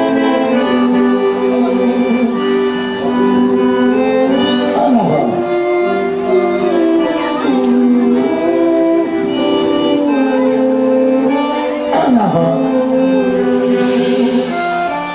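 Music with long held, drone-like chords that change in steps, and a few sliding swoops in pitch, about three times.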